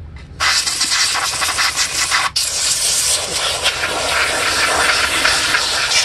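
Compressed-air duster can spraying in a loud, steady hiss, blowing dust out of a laptop cooling fan. The blast starts a moment in and cuts out for an instant a little past two seconds before carrying on.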